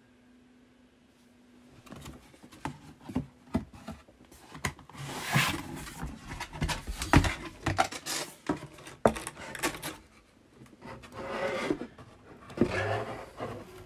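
Cardboard shipping box being opened by hand: flaps rubbing and scraping against each other with irregular knocks, starting about two seconds in.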